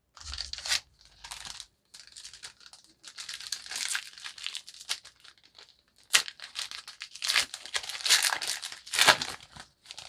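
A trading-card pack wrapper being torn open and crinkled by hand, in a run of short crackling bursts, the loudest in the second half.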